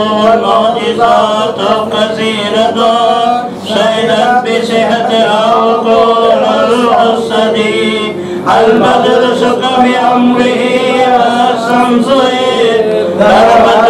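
Men chanting devotional verses in a continuous melodic recitation, with brief breaks between phrases.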